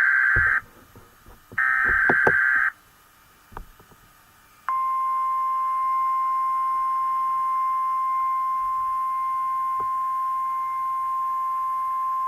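NOAA Weather Radio alert: the end of one SAME digital header burst and another about a second later, harsh buzzy warbling data bursts, with faint static clicks between. About four and a half seconds in comes the steady 1050 Hz warning alarm tone, the signal that a warning-level alert such as a tornado warning follows.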